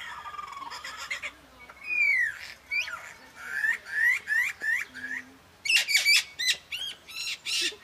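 Superb lyrebird singing its loud, varied display song. It runs through a string of different whistled notes, then a series of repeated rising-and-falling calls about four a second, then quick, sharp cracking notes in the last two seconds.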